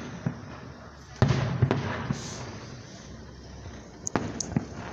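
Aerial firework shells bursting. The loudest bang comes about a second in, followed closely by another and a trailing rumble, and a quick run of sharp cracks comes near the end.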